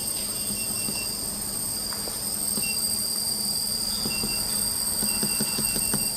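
Short electronic beeps from a laser welder's control panel as its parameters are keyed in, coming singly and in quick runs, with a steady high-pitched whine from the machine running underneath.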